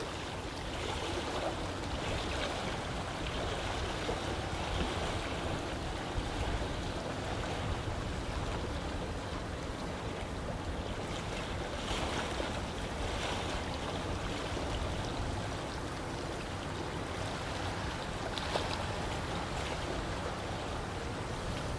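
Steady rushing of lake water, with a few brief splashes.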